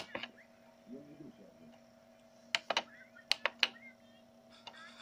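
Crisp button clicks, typical of paging through a DVD menu: one at the start, then a quick run of about five from about two and a half to three and a half seconds in. A steady low electrical hum runs beneath them.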